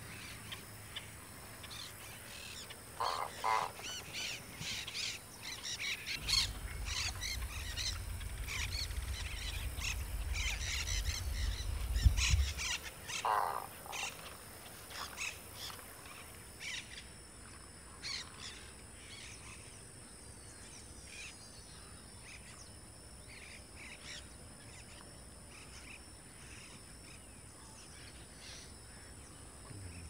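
Wild birds calling in a flooded field: a busy run of short, high chirps and calls with a lower call about three seconds in and again past thirteen seconds, thinning to sparse, faint calls after about sixteen seconds. A low rumble sits under the calls in the middle.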